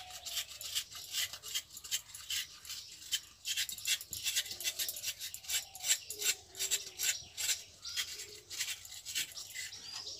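A mature coconut's flesh being scraped out of the half shell with a knife: quick rasping strokes, several a second, running on without a break.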